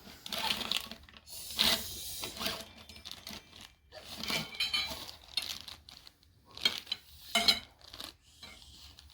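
Rustling and clattering as a soccer goal's frame pieces and net are handled and pulled apart. It comes in irregular bursts, with a few sharp knocks, the loudest about 1.5 seconds in and two more near the end.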